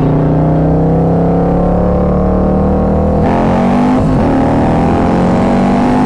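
Stage 2 Harley-Davidson Milwaukee-Eight V-twin motorcycle accelerating hard under full throttle. The engine note climbs steadily, drops at an upshift about three seconds in, then climbs again.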